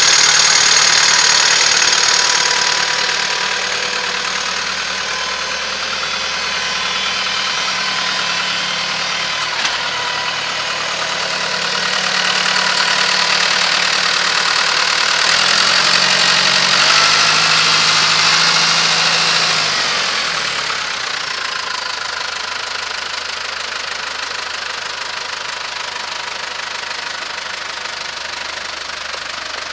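New Holland TS110 tractor's diesel engine running steadily; its engine note shifts for a few seconds about halfway through, then carries on a little quieter as the tractor pulls away.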